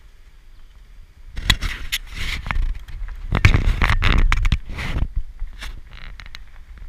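Acura SUV's tyres crunching and scraping over a loose gravel road, with bursts of stones crackling from about a second and a half in to about five seconds, over a steady low road rumble.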